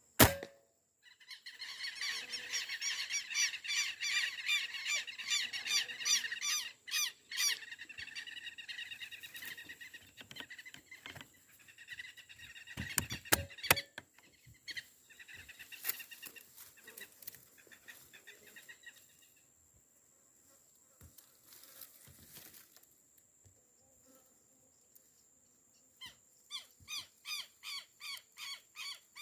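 A sharp crack from a Beeman 1336 PCP air rifle being fired, then a flock of birds calling in fast, repeated notes for several seconds. Another sharp crack comes about 13 seconds in, followed by scattered calls, and a run of evenly spaced calls near the end, over a steady high-pitched whine.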